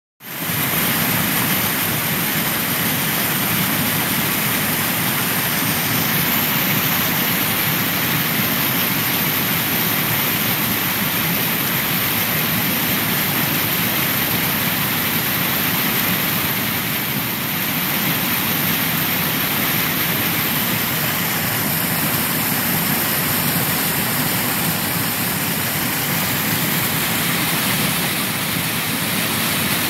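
Small creek waterfall: muddy water pouring over a low ledge into a foaming pool, giving a steady, unbroken rushing sound.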